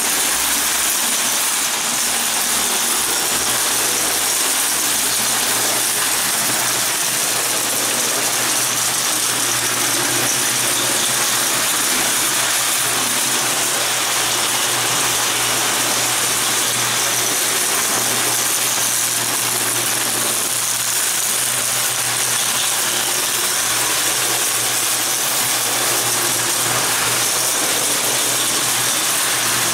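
Prewar Lionel tinplate toy train running on three-rail track: its AC motor hums steadily while the wheels and gears rattle and grind continuously.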